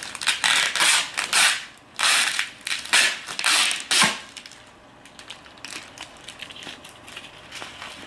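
Packaging being pulled apart and crinkled while a box is unpacked: several loud rasping bursts in the first four seconds, then quieter rustling and handling.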